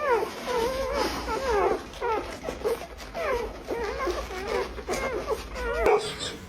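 Dog whimpering and whining: many short, high, wavering cries one after another.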